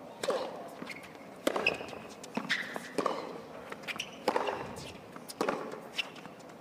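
Tennis rally: the ball is struck back and forth with rackets, a sharp hit roughly every second and a half, most of them with a player's short grunt. Light footsteps on the hard court run between the shots.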